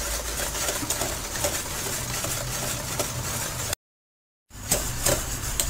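Wire whisk stirring chocolate custard in a stainless steel pot, with light scraping and faint taps against the metal over a steady low hum. The sound cuts out completely for under a second a little before the end.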